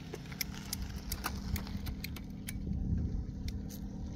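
Bicycle being wheeled and handled: a scatter of sharp, irregular metallic clicks and rattles over a steady low rumble.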